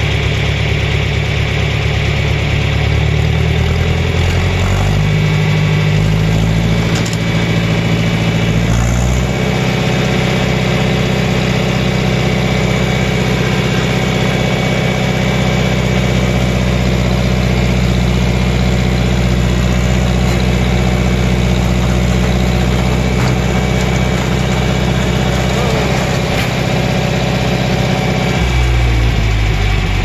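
John Deere 3010 tractor engine running close up, its speed shifting a few times in the first ten seconds, holding steady, then dropping near the end.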